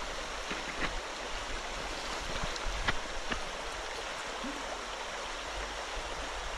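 Shallow, rocky creek rushing steadily over stones in a riffle, with a few brief sharp ticks about a second in and around the middle.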